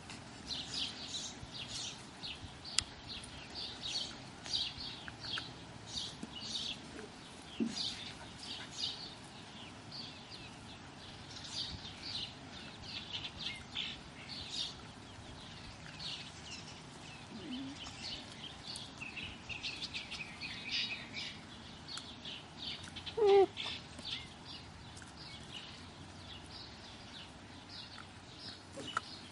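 Steady chirping of small birds, with six-week-old German Shepherd puppies play-fighting; one short puppy yelp stands out about two-thirds of the way through.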